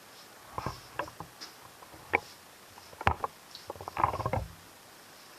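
Road bicycle tire being pushed onto its rim by hand: a run of sharp clicks and knocks as the bead goes over the rim edge, then a denser stretch of rubbing and knocking about four seconds in.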